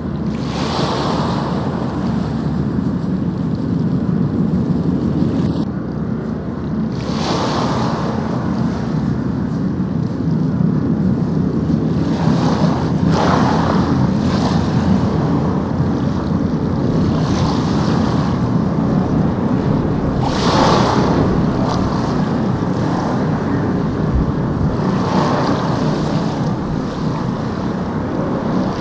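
Sea waves breaking on a beach, the surf swelling and washing in about every five to seven seconds over a steady low rumble of wind.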